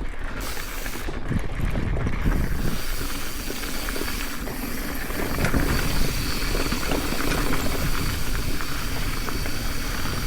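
Mountain bike rolling down a dusty dirt trail: tyres grinding over dirt and rock, the bike rattling, and the rear hub's ratchet buzzing as the rider coasts.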